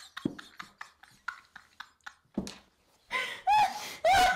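Hard laughter from two women: wheezing, breathy near-silent laughing in quick repeated gasps, breaking about three seconds in into loud, high-pitched shrieks of laughter.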